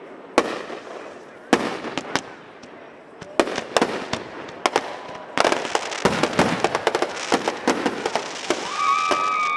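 Aerial fireworks display: a few separate shell bursts at first, building from about halfway into a dense run of bangs and crackling. Shrill whistling tones join near the end.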